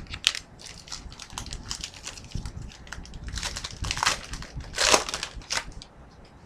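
Trading cards and their pack wrapper being handled: irregular crinkling and rustling, with the loudest crackles about three and a half to five seconds in.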